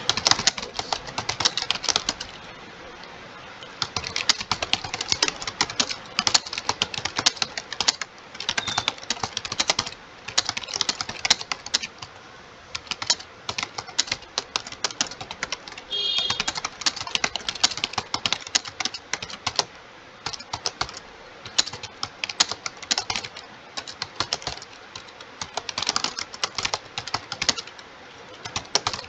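Fast typing on a computer keyboard: rapid key clicks in runs of several seconds, broken by a few short pauses.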